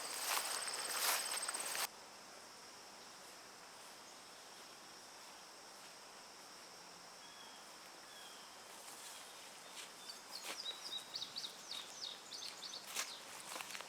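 Footsteps swishing through tall weeds, over a steady high insect trill. The steps stop suddenly about two seconds in, leaving the faint insect trill and a few faint bird chirps. Near the end the swishing steps resume with a quick run of short chirps.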